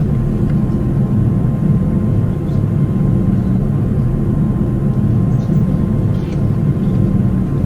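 Steady low drone of an airliner cabin in flight, the engines and airflow running evenly, with a faint steady high tone over it.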